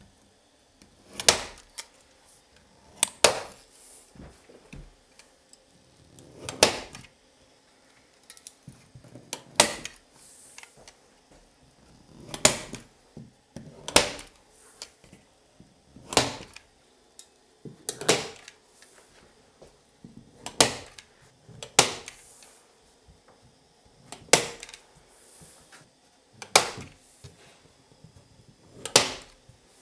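A series of sharp knocks or blows, about a dozen, each followed by a short ring-out, spaced unevenly one to three seconds apart.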